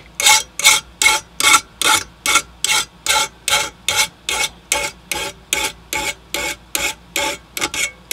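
Hand file stroking back and forth across the edge of a Ryobi lawnmower blade held in a bench vise, about two and a half even strokes a second. The strokes are taking the high side off a badly nicked edge.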